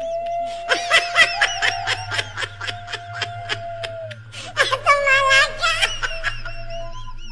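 A high-pitched cackling laugh: a rapid run of short 'hi-hi-hi' notes, about six a second, then a second burst of laughter a little past the middle, in the manner of a kuntilanak ghost's cackle.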